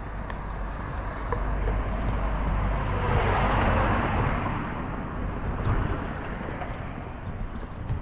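A car driving past on the street, its engine and tyre noise swelling to a peak about three to four seconds in, then fading away.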